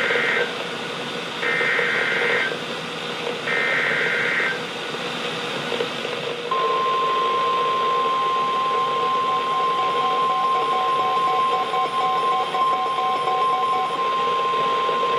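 NOAA Weather Radio emergency alert signal heard through a weather radio's speaker over a hiss. First come three roughly one-second bursts of warbling digital tones, the SAME data header that encodes the warning. After a short gap, the steady 1050 Hz warning alert tone starts about six and a half seconds in and holds, with a fainter pulsing beep under it.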